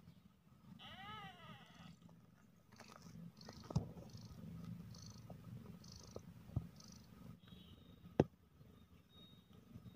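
Mother cat purring steadily with a low rumble while nursing newborn kittens. A brief warbling high squeak comes about a second in, and three sharp clicks stand out later, the loudest near the end.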